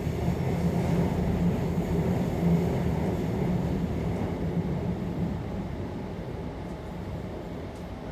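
Suburban electric passenger train running, heard from inside the carriage: a steady low rumble that gradually grows quieter in the second half.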